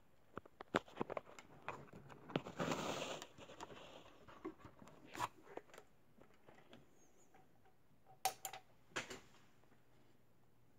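Handling noises: scattered light clicks and taps with a brief rustle about two and a half seconds in, then a couple of sharper clicks near the end. A faint low hum sets in after them.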